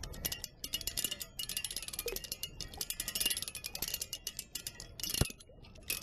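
Fast, irregular metallic clicking and clinking from a small water wheel's hinged paddle arms, bolts and washers as it turns in the river current, with one sharper knock about five seconds in.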